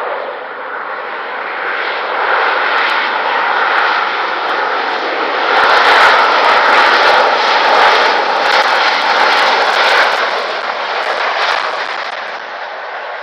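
Jet airliner passing as it lands: the engine roar builds over a few seconds, is loudest through the middle with some crackle, then fades away near the end.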